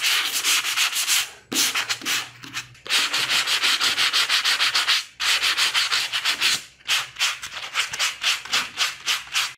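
Abrasive sanding sponge rubbed quickly back and forth over dried putty on a column, a scratchy hiss of many rapid strokes that breaks off briefly three times. It is smoothing off ridges and burrs in the filler coat.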